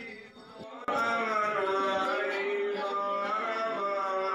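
Men singing a Hindu devotional chant with long held notes. The singing drops away briefly, then cuts back in abruptly about a second in.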